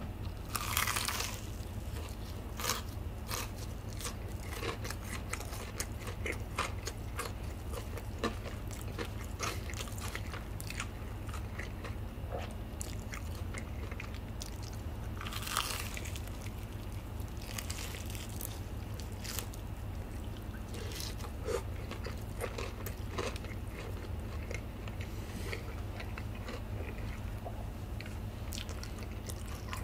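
Close-up eating sounds of a fried chicken drumstick being bitten and chewed: crunchy bites into the crisp coating about a second in and again around fifteen and eighteen seconds, with many small crunching clicks of chewing in between. A steady low hum runs underneath.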